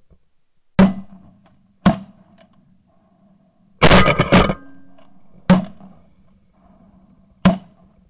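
A volley of shotgun blasts at passing ducks: single shots about a second and two seconds in, a quick burst of several overlapping shots near the middle, then two more spaced about two seconds apart, each with a short echo.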